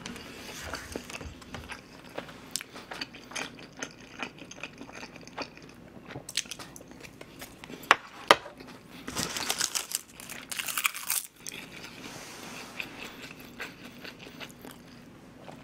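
A man chewing and biting food close to the microphone, with crunching and many small clicks; two sharp clicks stand out about eight seconds in.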